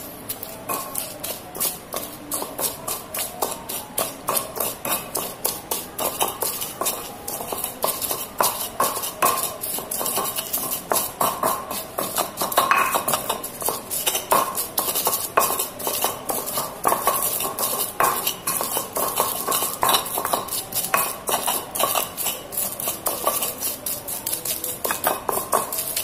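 Pestle grinding and scraping in a stone cobek mortar, crushing fried chillies, shallots and garlic into sambal paste. Repeated grinding strokes keep a steady rhythm of about two to three a second.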